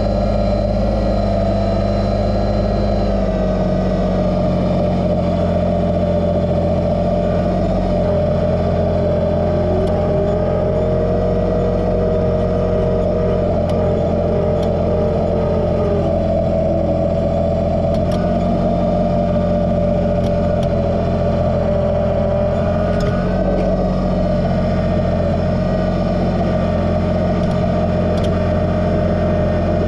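Kubota BX2380 sub-compact tractor's three-cylinder diesel engine running steadily at working revs while the loader moves snow. A second tone rises and falls briefly near the middle.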